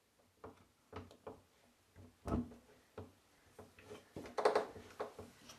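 Irregular metal clicks and knocks as a half-inch drive torque wrench and drain removal tool are handled and set in a brass bathtub drain, with the loudest knocks about two seconds in and a dense run of clicks near the end.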